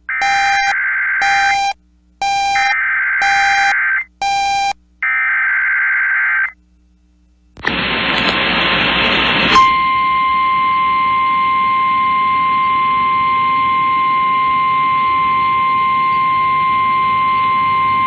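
Emergency Alert System activation for a test tornado warning: a string of short, screechy digital data bursts (the alert header), a brief burst of radio static, then the NOAA Weather Radio warning alarm, a single steady high tone held for about nine seconds.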